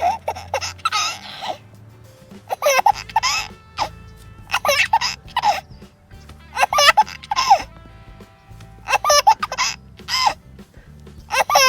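Infant laughing in short, high-pitched bursts of giggles, about one every two seconds.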